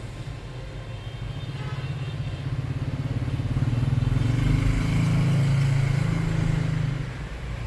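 A vehicle engine passing by, growing louder over a few seconds and then dropping away about seven seconds in.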